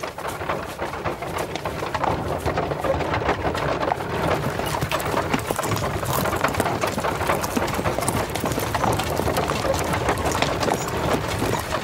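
Horses' hooves clip-clopping as horse-drawn carts and a file of travellers move along, a steady jumble of many small knocks.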